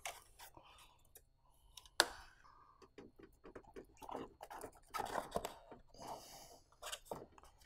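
Parts being worked loose by hand in a car's engine bay: faint scattered clicks and crunching, with one sharper click about two seconds in.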